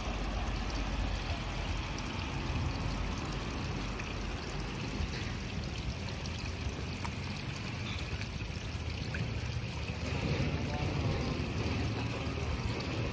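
Steady outdoor background noise with a low rumble and an even hiss, with no distinct events.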